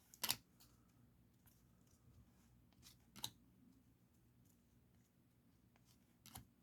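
Faint handling of trading cards and a plastic card sleeve: three short, sharp clicks a few seconds apart, with near silence between them.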